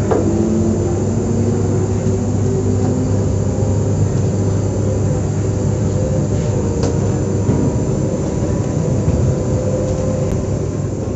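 Z2N double-deck electric multiple unit standing at the platform, its onboard equipment humming steadily as a low drone with several held tones over a hiss. A sharp click right at the start and a fainter one about seven seconds in.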